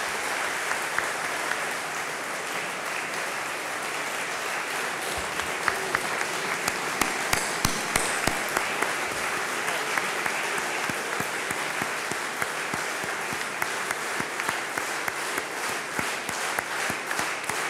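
A large crowd applauding steadily, a sustained ovation of many hands clapping; near the end single claps stand out more.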